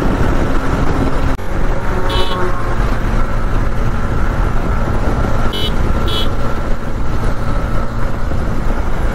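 Steady wind and engine noise of a motorcycle riding along a highway. Short high-pitched toots come about two seconds in and twice more around five and a half and six seconds.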